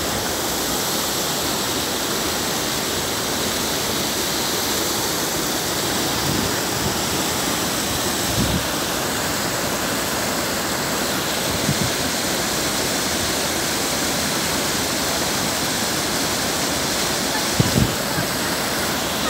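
Floodwater rushing in a steady, loud torrent down a street and over a small spillway. A few brief, dull low thumps come through it, in the middle and near the end.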